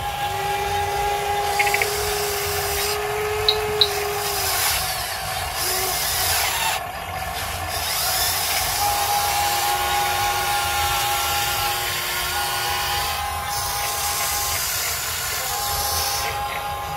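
Huina 580 RC excavator's electric motors whining as the arm and tracks work, the steady tones starting and stopping every few seconds as different functions run, over a constant grinding rumble. Two sharp clicks about three and a half seconds in.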